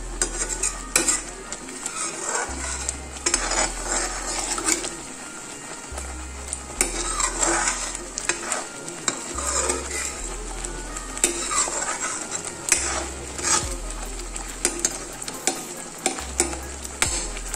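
A slotted metal spoon stirring thick masala-and-milk gravy in a metal kadhai, with repeated scrapes and clinks against the pan, while the gravy sizzles as it heats toward a boil.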